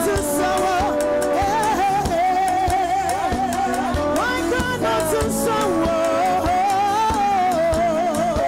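Live gospel music: a woman sings long, slightly wavering held notes into a microphone over a live band with bass guitar and percussion.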